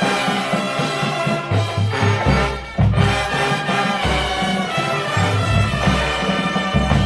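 Drum and bugle corps playing: the brass line holds loud chords over a drum line with repeated low bass-drum hits. The band drops back briefly about three seconds in, then comes back in loud.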